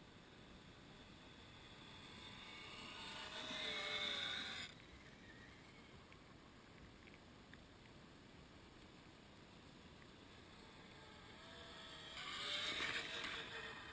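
Electric motor and gearbox of a Tamiya CC-01 Pajero RC crawler whining, rising and falling in pitch as it drives. It swells up twice, the first time cutting off abruptly about four and a half seconds in, the second rising near the end, over a steady hiss.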